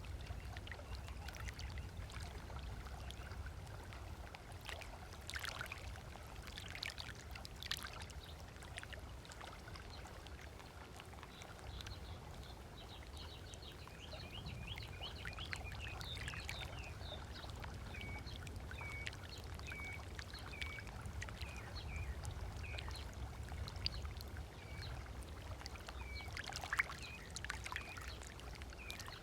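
Small waves lapping and splashing on a sandy lagoon shore over a low rumble, with birds calling: a quick chatter of notes, then one short call repeated a little more than once a second through the second half.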